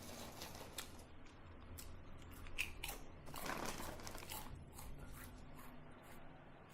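Close-up eating sounds: crunchy food being bitten and chewed, with crinkling of packaging, louder for a second or so near the middle.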